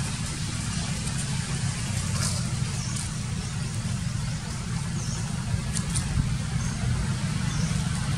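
Steady low rumble of a motor vehicle engine running nearby, with a few faint high chirps and light clicks over it.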